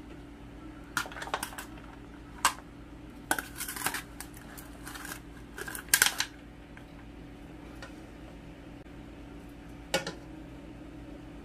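A plastic serving spoon scraping and knocking against a metal cooking pot as cooked rice is spooned into a thin aluminium foil pan, giving a string of short clatters and scrapes over the first six seconds and one more knock near the end. A steady low hum runs underneath.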